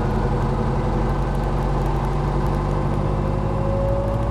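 Guimbal Cabri G2 helicopter's Lycoming O-360 four-cylinder piston engine running steadily with the main rotor turning, heard from the cockpit. Near the end its pitch rises a little as the throttle is rolled up toward 2,000 RPM during start-up.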